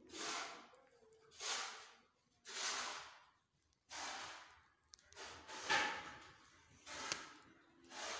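A person breathing close to the microphone: a noisy breath about every second and a quarter.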